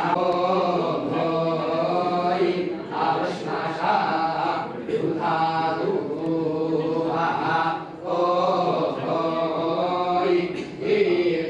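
A group of men chanting scripture recitation (parayana) together in a steady chant, pausing briefly for breath every few seconds.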